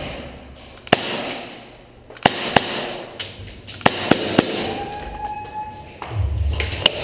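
Airsoft gunfire: about seven sharp single pops, spaced irregularly, with two or three close together in the middle.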